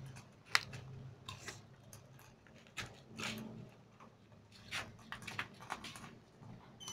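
Metal spoon scraping and clinking against a glass bowl while scooping out martabak filling, several light, irregular clicks, the sharpest about half a second in.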